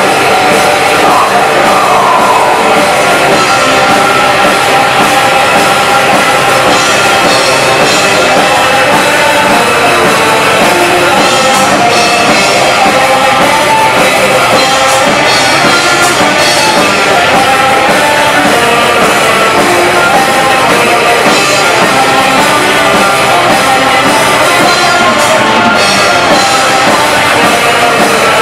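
Black metal band playing live: distorted guitars and drum kit at full volume, loud and without a break, with some singing.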